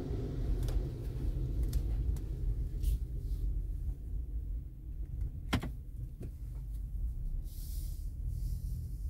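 Low rumble of a car moving slowly, heard from inside the cabin, with a few sharp clicks or knocks, the loudest about five and a half seconds in.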